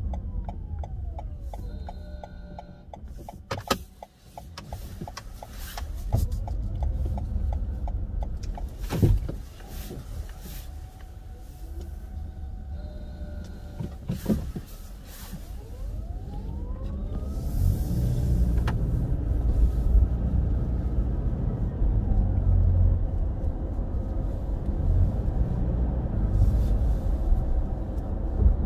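Car interior noise during a three-point turn: a low engine and tyre rumble with scattered clicks and knocks and a few brief tones. The rumble grows louder about two-thirds of the way in as the car drives off.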